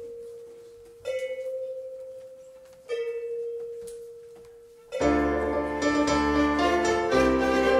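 Live band music opening: a single held note is struck twice, about two seconds apart, each ringing and fading. About five seconds in, the full ensemble comes in loudly with bass and many notes at once.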